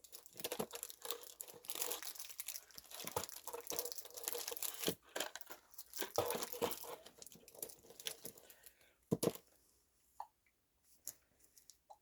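Snack packaging crinkling and tearing as it is handled and opened: a dense crackle for most of the first eight seconds, then a few scattered rustles and clicks.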